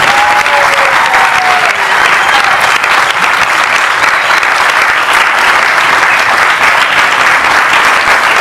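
Audience applauding, loud and steady, with a brief falling cry from the crowd in the first second.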